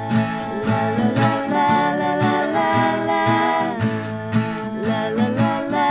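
Background music led by acoustic guitar, played at a steady level.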